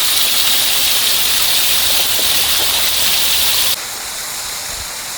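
Steady rush of flowing water. About three quarters of the way through it cuts off abruptly to a quieter, duller rush of water.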